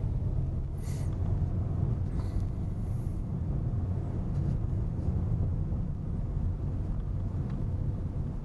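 Steady low rumble of a Chevrolet car's engine and tyres on the road, heard from inside the cabin while driving. A couple of brief hissing swishes come about a second in and again around two to three seconds in.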